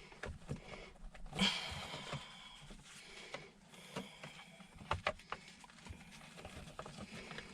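Faint clicks, knocks and rustles of plastic shifter trim being handled and pressed down into place around a gear shift lever, with a brief rustle about a second and a half in and a few sharper clicks about five seconds in.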